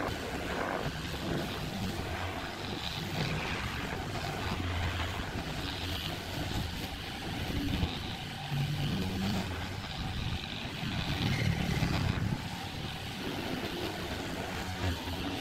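Electric orbital sheet sander running, its sandpaper pad scrubbing back and forth across a wooden tabletop, the noise rising and falling a little as it is moved.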